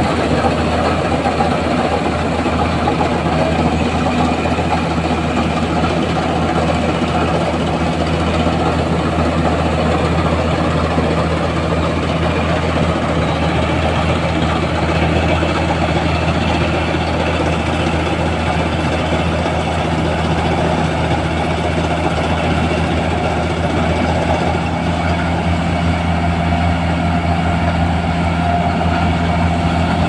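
Diesel engine of a self-propelled rice combine harvester running steadily while it cuts and threshes paddy. A constant low engine drone sits under a steady mechanical rush from the working machinery.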